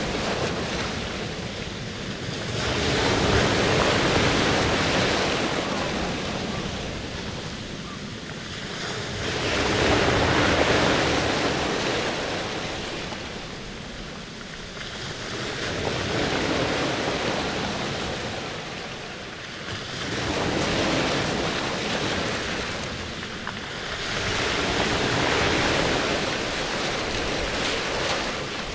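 Rushing water noise, like surf, that swells and fades slowly about every five or six seconds.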